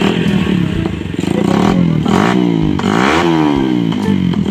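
Suzuki Raider 150's single-cylinder engine, running through a 30 mm Nibbi carburetor and a DBS exhaust with the silencer removed, revved while standing. It runs steadily at first, then the revs climb and fall back twice in quick throttle blips near the middle.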